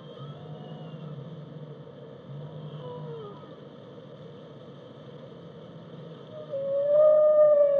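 Whale song over a low steady rumble. A few faint short calls slide down in pitch, then about six and a half seconds in comes one long, loud call that rises slightly and holds.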